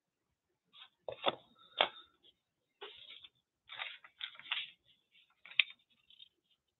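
Collage papers and a small card panel being handled and set down on a worktable: several short bursts of paper rustling with sharp taps, the loudest about two seconds in and again near the end.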